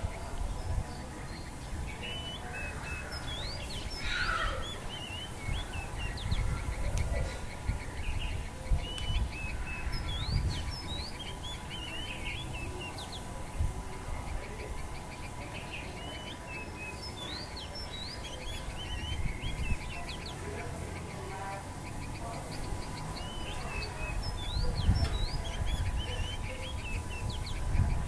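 Yellow-vented bulbul calling: short, bubbly whistled notes that rise and fall, given in loose phrases again and again, over a steady faint hum and a low rumble.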